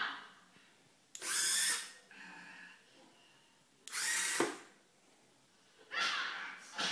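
Motorized faceplate of a homemade Iron Man helmet, its small motor whirring twice: once as the faceplate opens and again about two and a half seconds later as it closes.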